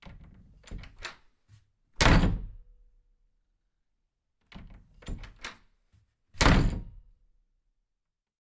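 A series of knocks and two heavy thuds about four seconds apart, each thud led in by a few lighter knocks; it falls silent for the last second or so.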